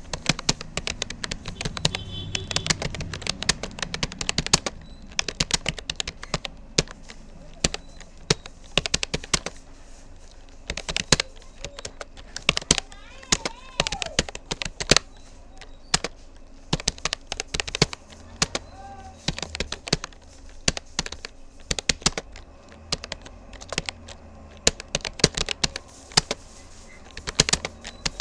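Typing on a Rapoo computer keyboard: a fast, uneven run of key clicks with brief pauses between bursts, as in a timed typing test.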